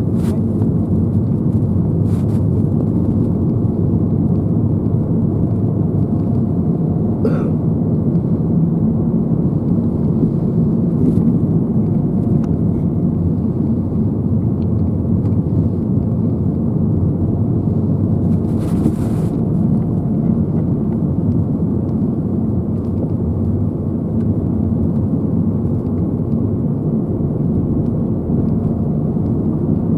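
Steady low rumble of a car's engine and tyres on the road, heard from inside the cabin while driving. Two brief, short sounds stand out, about seven seconds in and around nineteen seconds.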